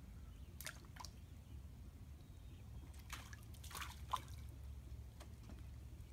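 Water dripping and splashing in a few short, scattered patches, with a sharper drip about four seconds in, over a faint steady low rumble.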